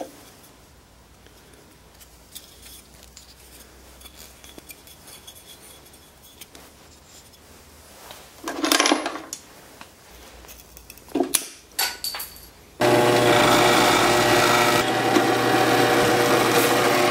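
A few brief scrapes and knocks of wood being handled. Then, about thirteen seconds in, a drill press runs steadily with its bit boring a hole in a wooden bar. This is the loudest sound.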